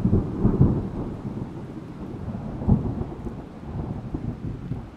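Thunder rolling over steady rain: a deep rumble that is loudest in the first second, cracks sharply again a little before the midpoint, and dies away near the end.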